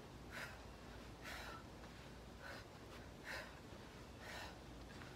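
Faint, short breaths out, about one a second, from a woman exercising hard. The breaths keep time with fast bicycle crunches and knee-tuck crunches.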